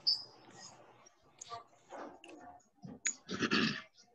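Scattered clicks and a short burst of rustling noise near the end, with faint snatches of voices, over video-call audio.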